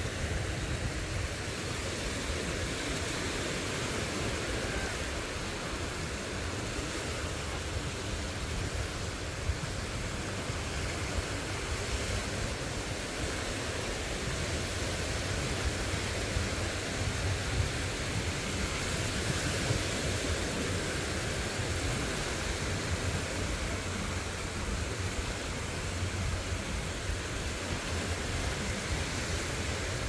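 Steady seaside noise of small waves washing on a calm shore, with wind rumbling on the microphone.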